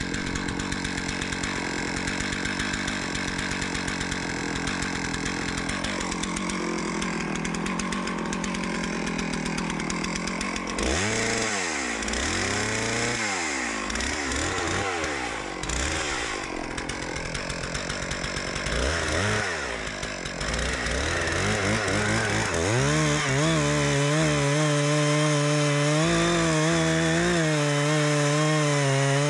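Stihl MS660 Magnum two-stroke chainsaw running hard while cutting into a large tree to fell it. Its engine pitch swings up and down repeatedly partway through, then holds a steady high note near the end.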